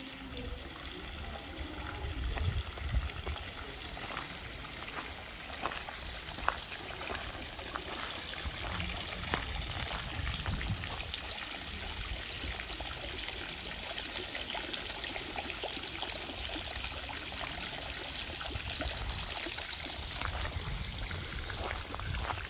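Water from a park fountain's small jets trickling and splashing steadily into its stone basin, with brief low rumbles about two to three seconds in and again around ten seconds.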